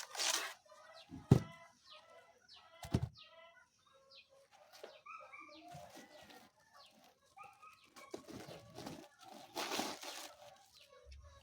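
Chickens clucking with many short calls throughout. In the first three seconds there are three sharp strikes of a blade chopping through banana stem, and a brief rush of noise comes near the end.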